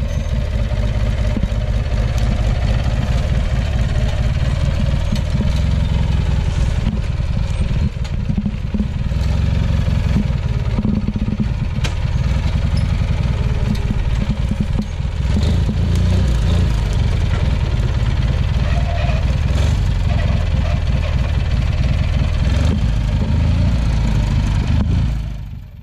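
Craftsman lawn tractor's engine running steadily under load as the mower crawls over logs and rough ground.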